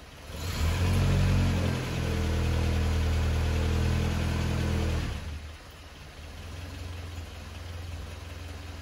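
Land Rover Series 3 2.25-litre four-cylinder petrol engine running just after a cold start: it picks up to raised revs about half a second in, holds there steadily for about four seconds, then drops back to a quieter idle.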